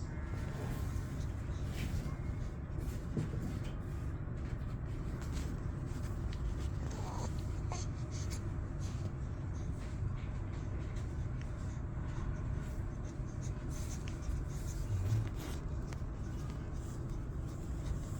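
Steady low hum with faint, scattered rustling and light clicks.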